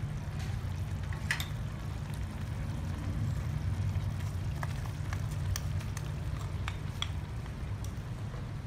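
Thick sauce simmering in a frying pan on a portable gas stove, stirred with a wooden spoon, which gives scattered light clicks and scrapes against the pan over a steady low rumble.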